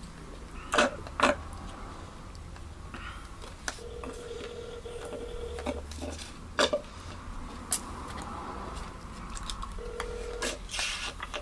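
Telephone ringback tone from a cell phone, a steady tone sounding for about two seconds at a time while a call rings out, heard twice. A few sharp clicks, the loudest about a second in and past the middle.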